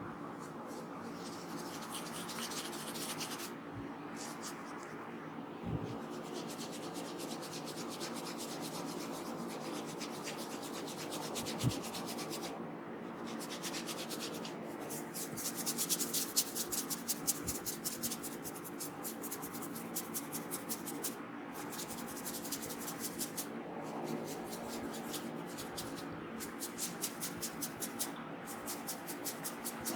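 Hands rubbing briskly over hair and scalp in a head massage: runs of fast scratchy strokes broken by short pauses.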